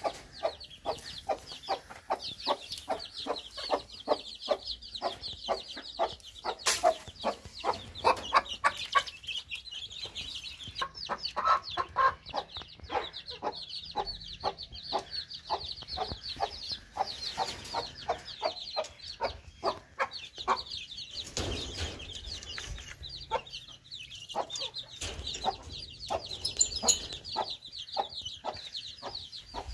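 A hen clucking in quick repeated short calls over the constant high-pitched peeping of a brood of chicks.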